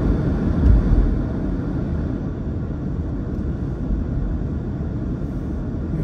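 Steady low road rumble of a car driving on a snow-covered road, heard from inside the cabin: tyre and engine noise, with a brief low thump about a second in.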